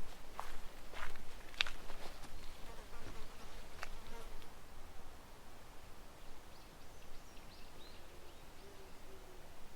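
Footsteps on a path over the first few seconds, then the faint, wavering hum of a flying insect.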